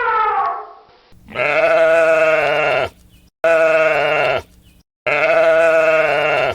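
A sheep bleating three times, each a long call with a wavering quaver. The tail of a cow's moo fades out in the first half second.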